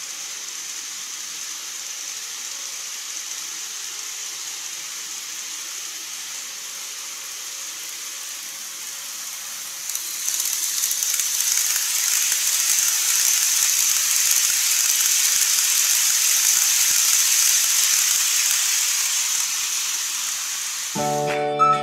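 KATO 285 series Sunrise Express model train running on the layout's track: a steady high hiss of its motor and wheels, growing louder about halfway through as the train passes close by, then easing off near the end. Music starts just at the very end.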